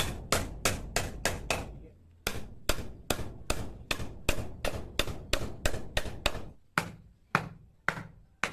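A small hand saw for wood being sharpened: quick, sharp metal strokes about three a second, with a short pause about two seconds in and slower, more spaced strokes near the end.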